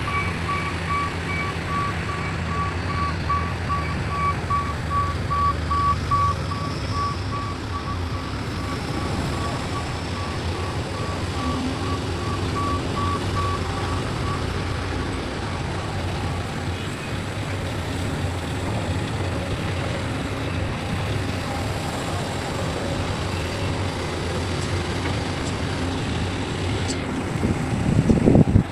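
Heavy diesel machinery running steadily, with a reversing alarm beeping rapidly and repeatedly until about halfway through. There is a brief loud surge near the end.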